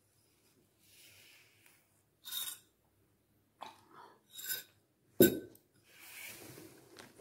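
Handling of a printed paper magazine as a finger is wetted at the lips and a page is turned: short mouth sounds around the fourth second, a sharp knock a little past five seconds, then soft paper rustling.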